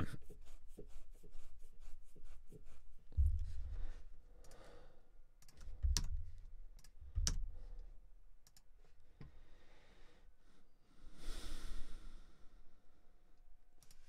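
Computer mouse and keyboard clicking, with a few low thumps about three, six and seven seconds in, and a sigh-like breath near eleven seconds.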